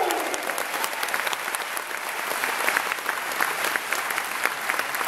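Audience applauding in a theater: a dense spatter of handclaps that eases slightly just after the start, then holds steady.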